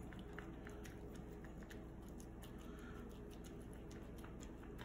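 Faint, scattered soft taps and scrapes of a silicone spatula patting and spreading wet oat mixture flat in a baking tray, over a low steady hum.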